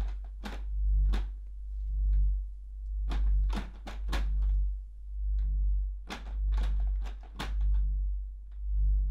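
Horror-film sound design: a deep bass drone throbbing about once a second, like a slow heartbeat. Scattered sharp clicks and taps sound over it, bunched in two short clusters.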